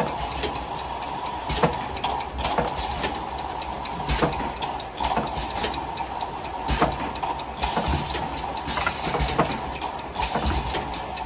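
Automatic bottle filling, foil-sealing and capping machine running: a steady mechanical noise with sharp clicks and clacks every second or so as the turntable indexes and the heads cycle, and stretches of high hissing air from the pneumatics.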